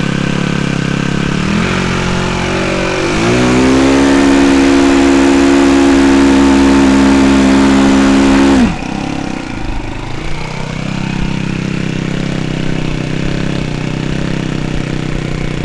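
Small model-aircraft engine given a full-throttle run-up: it climbs in two steps to a high steady note, holds it for about five seconds, then is throttled back suddenly to a lower idle and keeps running.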